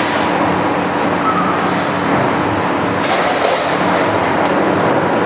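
Automatic steel-plate punching machine running, a steady loud mechanical din over a continuous low hum.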